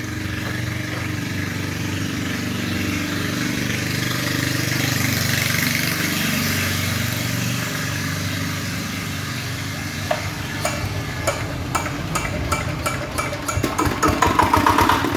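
Dongfeng R175 single-cylinder diesel engine running after being started, no longer refusing to start once its injector nozzle has been set and air bled from the fuel line. It grows louder over the first few seconds. From about ten seconds in, sharp clicks and knocks sound over it, more often near the end.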